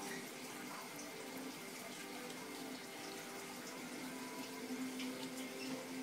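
A Schnauzer eating wet dog food from a bowl: wet chewing and smacking with many small, quick clicks.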